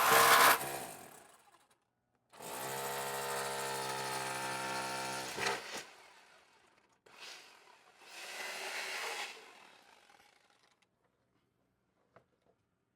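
A loud, sudden noise, then a small power-tool motor running steadily for about three seconds and again more weakly a few seconds later.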